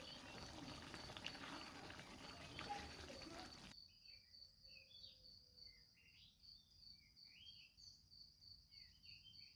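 Near silence: faint room noise that cuts out suddenly about four seconds in, with a steady high pulsing trill typical of a cricket throughout and faint short chirps behind it.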